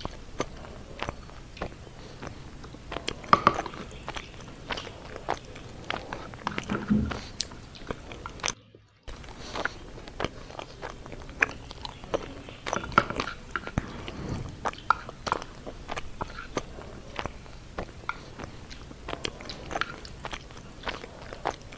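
Close-miked chewing and mouth sounds while eating, with wooden chopsticks clicking against a bowl, and a brief gap of silence about nine seconds in.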